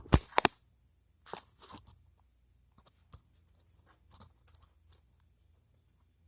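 Hands working on parts of a bicycle motor kit: a couple of sharp knocks about half a second in, then scattered small clicks and rustling.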